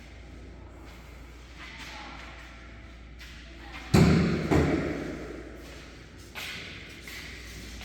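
Two heavy thuds a little over half a second apart, about four seconds in, each dying away with a ring. A lighter knock follows about two seconds later, over a steady low hum.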